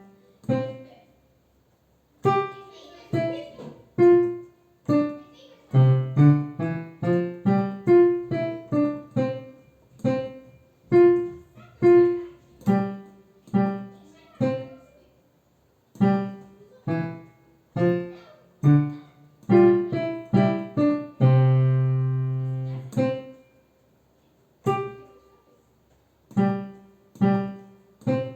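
Piano playing a simple tune one note at a time, each note fading away, with a longer held chord about three-quarters of the way through.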